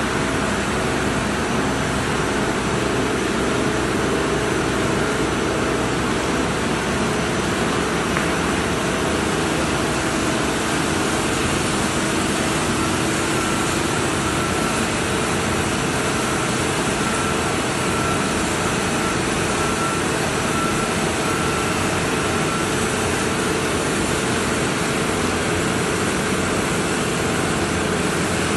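Plastic-film laser cutting machine running: a steady, even machine noise as the film feeds through its rollers, with a faint thin whistle for several seconds midway.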